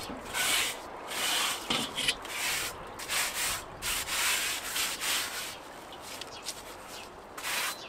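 Slightly metallic scouring sponge scrubbing the charcoal grate of a Weber kettle barbecue in quick rasping strokes, about two a second, to loosen stuck-on charcoal residue. The strokes fade for a couple of seconds, then one more comes near the end.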